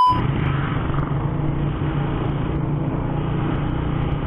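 Motorcycle riding at a steady pace, its engine a steady low hum under continuous road noise. A beep tone cuts off right at the start.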